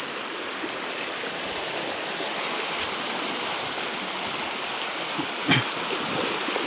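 Shallow, muddy stream water rushing steadily over a low line of rocks, with one short thud about five and a half seconds in.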